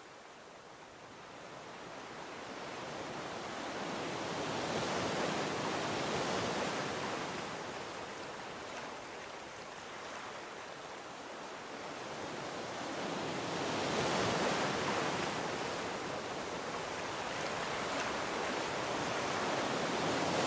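Ocean surf: a steady wash of waves on a shore that swells and ebbs slowly, building to three broad peaks.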